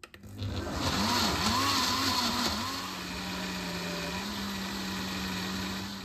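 Countertop blender puréeing chunky kimchi seasoning ingredients. The motor starts, then runs with a wavering pitch for the first few seconds while the mix is still chunky. It then settles into a steady hum, steps up slightly in pitch about four seconds in, and stops near the end.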